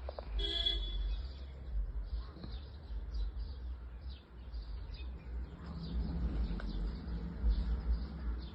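Small birds chirping over and over, with one short, loud call about half a second in, over a steady low rumble.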